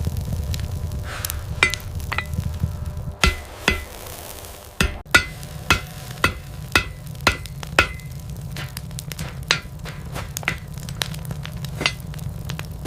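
Hammer striking steel on an anvil in hand forging: a sharp ringing strike, sparse at first and then steady at about two a second, over a continuous low rumble.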